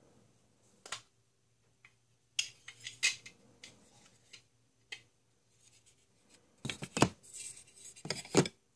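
Hard plastic clicking and rattling as a small plastic toy capsule is handled and pried open. A single click comes about a second in, a run of sharp clicks follows a couple of seconds later, and the louder, denser clatter comes near the end.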